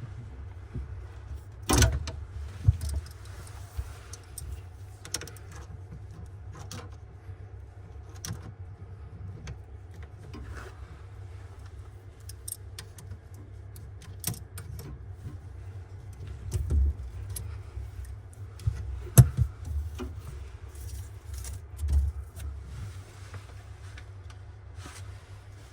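Scattered clinks and knocks of hard objects being handled, with a few sharper knocks, over a steady low hum.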